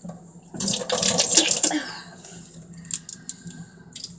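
Water splashing into a stainless steel kitchen sink. It starts about half a second in and is loudest for the next second or so, then trails off into scattered small splashes and drips.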